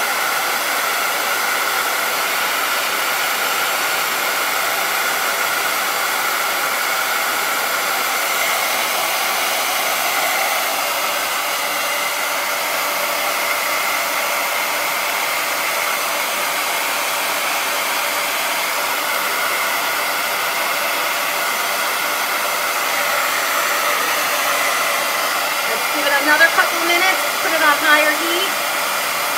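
Handheld hair dryer blowing steadily. Near the end a brief wavering, voice-like pitched sound rises over it.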